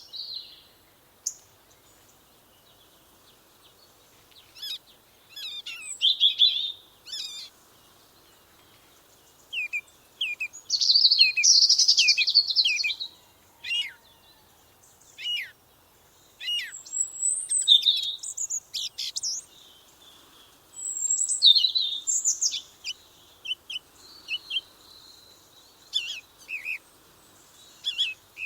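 Songbirds chirping and singing in short, high-pitched phrases separated by brief pauses, with a dense twittering burst about a third of the way in.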